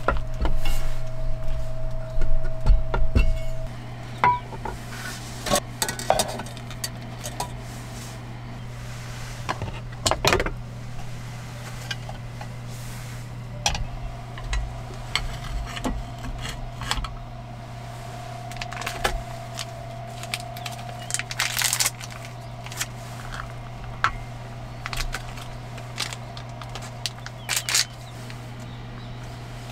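Metal clinks, clicks and knocks of camping cookware being handled on a wooden table: a single-burner gas stove and a hot sandwich maker being fitted together. The loudest knocks come in the first few seconds, over a steady low hum.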